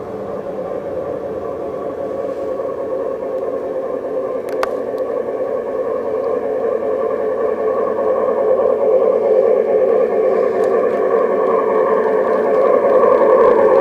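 Garden-railway model steam locomotives pulling a log train along the track, their electric drives and gearing whirring and the wheels running on the rails, growing steadily louder as the train approaches. There are two sharp clicks in the middle of it.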